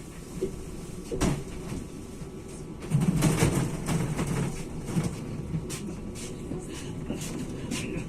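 Interior of an ES1P Lastochka electric train pulling out of a station: steady running noise with a sharp knock about a second in, a louder clatter and low hum around three seconds in, then a series of short clicks and clacks.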